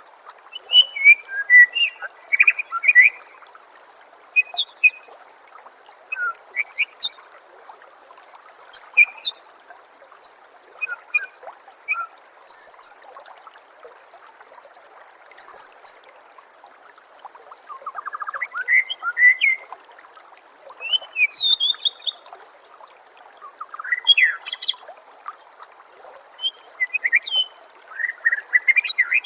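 White-rumped shama (murai batu) singing in short, varied phrases of whistles and chattering notes separated by brief pauses, over a steady trickle of running water.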